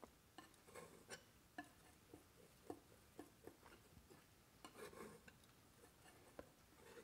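Faint, irregular taps and clicks of a metal palette knife working oil paint on a wooden palette, about two a second.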